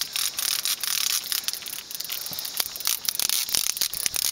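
Fishing reel being cranked against the pull of a hooked striped bass: a rapid, uneven run of small clicks over a hiss, thickening about halfway through.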